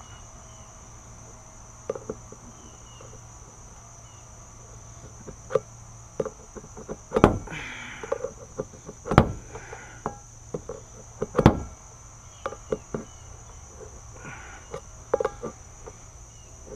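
A fixed-blade knife's tip stabbing and prying at a steel food can's lid, giving scattered metallic clicks and short scrapes, with three louder knocks in the middle. Insects chirr steadily underneath.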